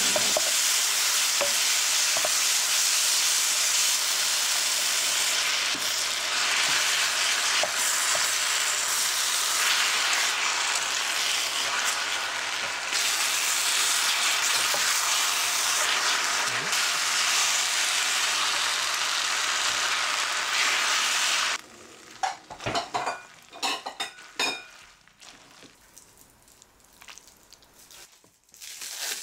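Amatriciana sauce of fresh tomatoes and onion sizzling hard in a frying pan as it is stirred with a wooden spoon and pasta is tossed through it. About three-quarters of the way in the sizzling stops abruptly, and scattered light clicks and scrapes follow as the pasta is served with tongs into ceramic bowls.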